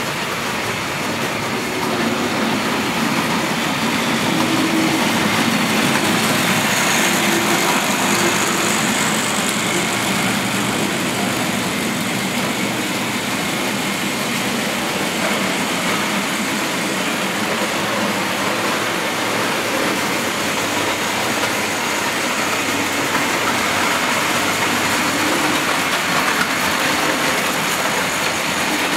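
Tri-ang 00 gauge model trains running on the layout: a steady whirr of the locomotive motors and the wheels rumbling on the track as a goods train and an express pass.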